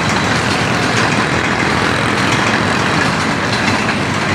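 Passenger express train running past on the track, its coaches' wheels on the rails giving a loud, steady rush of noise.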